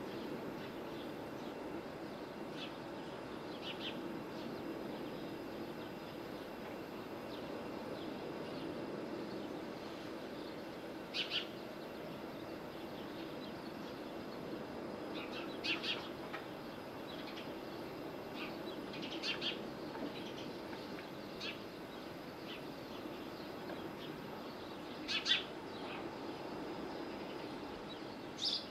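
Short, high bird chirps every few seconds, singly or in small clusters, the loudest about 25 seconds in, over a steady low background noise.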